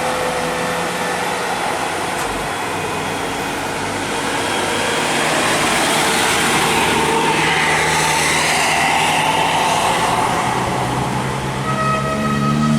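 Road traffic passing, with heavy vehicles such as buses. A steady rush of tyre and engine noise swells from about five seconds in and eases off near the end, where a steady higher tone and an engine beginning to rise in pitch come in.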